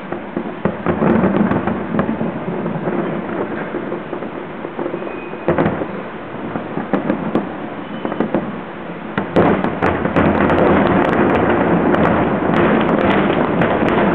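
Aerial fireworks bursting, a continuous run of bangs and pops with crackle. About nine seconds in it grows louder and denser, with many sharp crackles.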